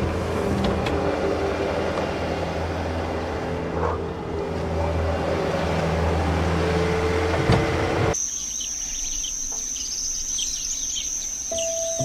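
Soft sustained music over a steady rushing noise; about eight seconds in this cuts abruptly to a steady high insect drone with many bird chirps, and held piano-like notes come back in near the end.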